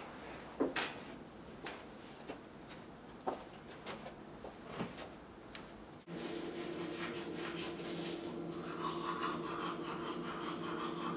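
A few short, soft clicks and rustles in a quiet room. About six seconds in, a toothbrush starts scrubbing teeth in rapid back-and-forth strokes and runs on steadily, louder.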